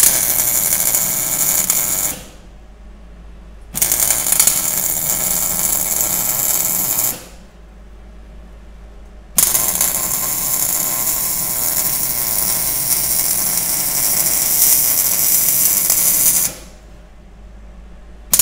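Wire-feed welder arc crackling on the steel roll bar support in three runs, about two, three and a half, and seven seconds long, with short pauses between them: the support is being finish-welded all the way around.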